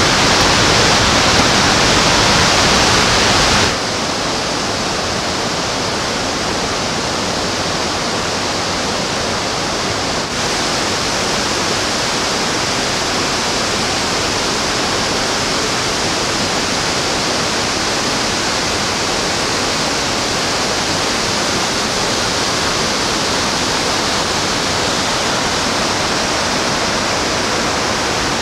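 Steady rushing noise of the Khandadhar waterfall's falling water. It drops a little in level about four seconds in, then holds steady.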